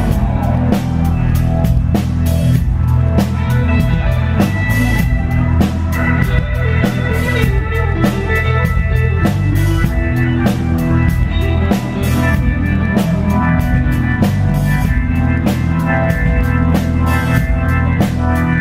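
Live blues-rock band playing with a steady drum-kit beat and electric guitar, loud throughout; a sustained lead line comes in about four seconds in.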